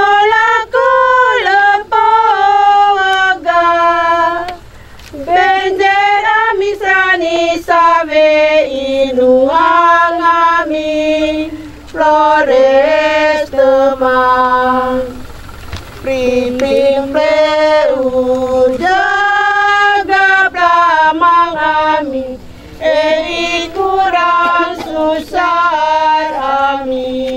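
Women singing a hymn without accompaniment, in phrases of a few seconds with short pauses between them.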